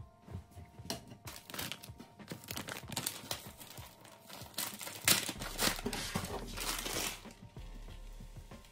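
Crinkling and rustling of packaging being handled, with some tearing, in irregular bursts.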